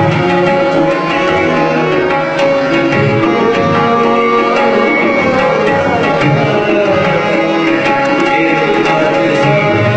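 Tabla playing a rhythm in a live music performance, under held steady notes and a melody line.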